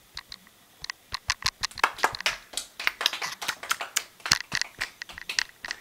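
Rapid, irregular scratchy clicks and rubbing of hands handling the iPod that is recording.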